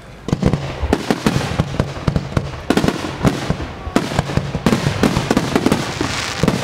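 Fireworks shells bursting in a dense, rapid series of bangs, several a second, over a steady low rumble.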